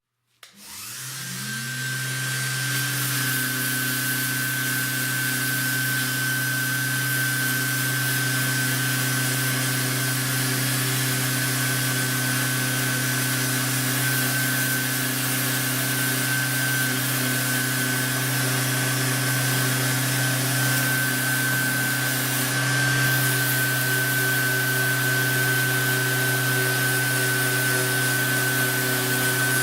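An electric power tool switches on about half a second in, spins up with a rising whine, then runs steadily with a hum, a high steady whine and a hiss.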